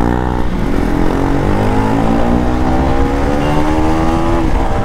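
Single-cylinder KTM motorcycle engine pulling hard under acceleration, its pitch rising steadily through one gear, then dropping with an upshift near the end and starting to climb again. A heavy low wind rumble runs underneath.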